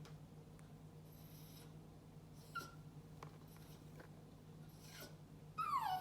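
Cockatiels: faint hisses, a short chirp about halfway through, and near the end a loud call that slides down in pitch.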